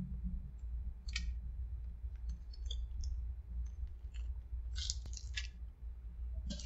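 A few short, light scrapes and clicks as a crunchy chip is dragged through a small plastic dip cup and the cup is handled, scattered over a low steady hum.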